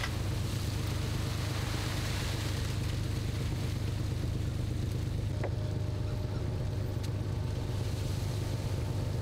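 A fishing boat's engine running steadily with a low drone. A single knock about halfway through, followed by a faint higher steady hum.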